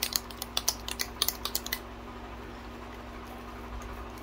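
Quick sharp clicks and taps of long acrylic nails and fingers handling a plastic acrylic-powder jar, for about the first two seconds; after that only a low steady hum.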